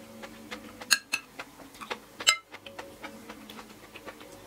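Metal spoon and fork tapping and scraping on a ceramic plate while eating: a string of light clicks with two sharp, ringing clinks, about one second and two seconds in.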